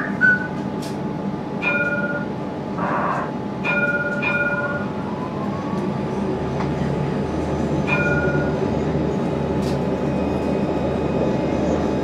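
Alstom Citadis 302 tram running, a steady rumble with a faint hum that grows a little louder in the second half. Four short beeps sound, about 2, 4, 4.5 and 8 seconds in, and there is a brief hiss near 3 seconds.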